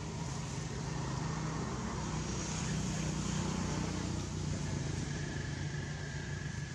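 A motor vehicle engine running steadily, a low hum with no break; a faint thin high tone joins it about five seconds in.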